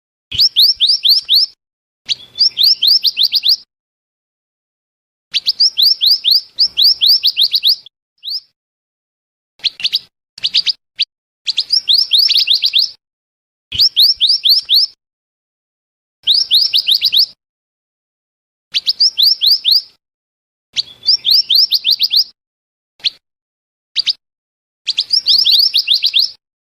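Lure recording of the mantenan (scarlet minivet) calling: high phrases of rapid, downward-sweeping whistled notes, each phrase one to two seconds long, repeated with short pauses and a few single notes between.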